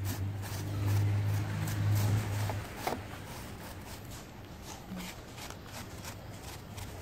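Steel wire brush scrubbing the dry, stained deadwood of a bougainvillea trunk in quick repeated strokes, taking the shine off the freshly applied wood impregnant. A low steady hum is the loudest sound over the first two and a half seconds.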